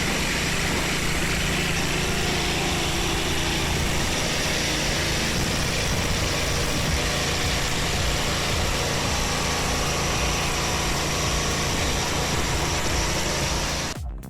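Engine running steadily at a constant speed, typical of the power unit driving a homemade log splitter. It cuts off abruptly near the end.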